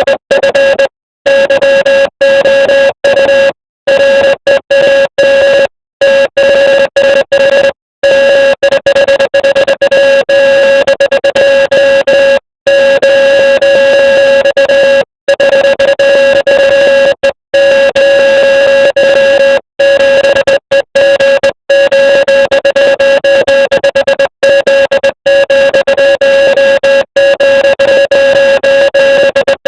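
Morse code sent as a buzzy tone, keyed on and off in an irregular pattern of tones of varying length separated by short breaks.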